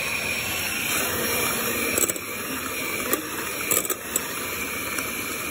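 Electric mixer running steadily, whipping egg whites with sugar, with a few light clicks and knocks about two, three and four seconds in.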